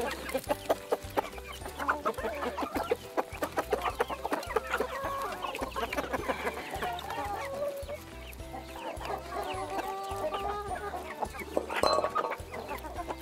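Hens clucking and chattering at close range as they feed, with many short taps among the calls. A louder outburst comes about twelve seconds in.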